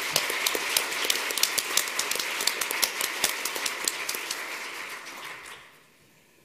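Audience applauding, dense clapping that fades out about five and a half seconds in.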